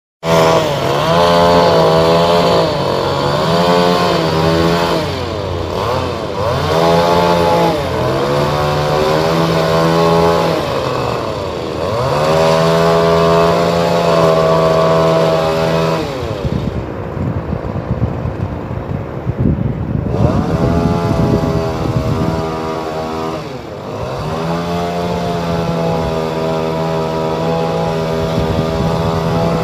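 Small two-stroke engine of a handheld landscaping power tool, revved up and down repeatedly. For a few seconds past the middle it runs lower and rougher, then holds a steady high speed near the end.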